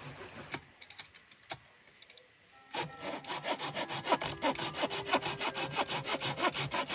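Handsaw cutting through a weathered wooden bench plank. A few scattered knocks come first, then about three seconds in the sawing starts in quick, even strokes, about four or five a second.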